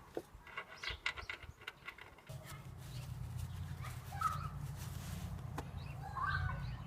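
A handful of light clicks and knocks, then a steady low hum that starts about two seconds in, with a few faint bird chirps over it.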